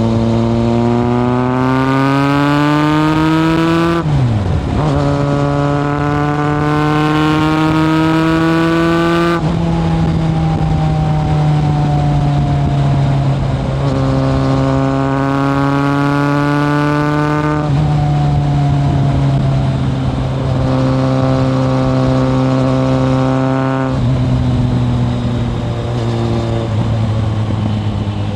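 Kawasaki ZRX1100 inline-four engine through a Yoshimura exhaust, heard from on board: it climbs in pitch under acceleration, drops sharply at a gear change about four seconds in and climbs again. It then runs steadily, pulls up once more, and drops in pitch twice further on as the rider shifts and eases off.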